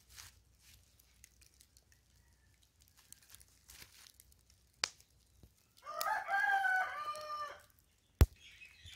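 A rooster crowing once, about six seconds in, for under two seconds. There is a sharp click shortly before the crow and a loud, short knock just after it.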